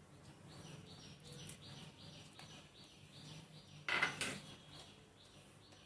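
A bird chirping faintly and over and over, with a brief clatter of kitchen utensils about four seconds in.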